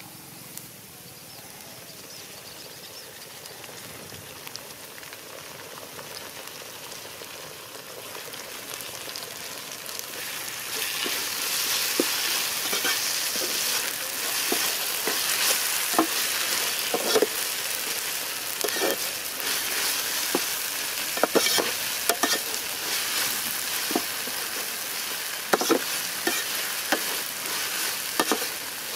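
Onions, green chillies and peas sizzling in hot oil in an aluminium pot. The sizzle builds and turns loud about ten seconds in. A metal slotted ladle stirs them, with frequent clinks and scrapes against the pot.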